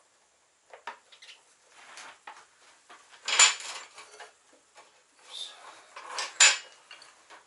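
Irregular metallic clinks and rattles of parts or cable being handled, two louder clatters about three and a half and six and a half seconds in.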